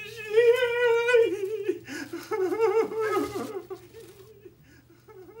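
A high-pitched voice making a wordless, wavering sing-song sound for about four seconds, then fading away.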